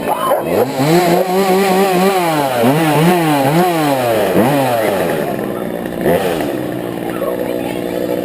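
Two-stroke chainsaw catching and revving up to a held high pitch, then given several quick revs up and down before dropping back to idle, with one short blip about six seconds in.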